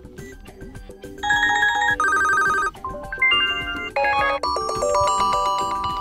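HTC One M9E playing previews of its preset ringtones through its own speaker: short electronic melodies, one after another, each breaking off as the next is selected. The first begins about a second in, after a faint soft tune.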